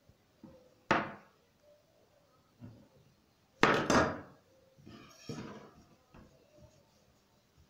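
Kitchen knife cutting through a roll of dough and knocking on the tabletop, one sharp knock about a second in. Halfway through, a louder double clatter as the knife is put down on the table, then a softer knock.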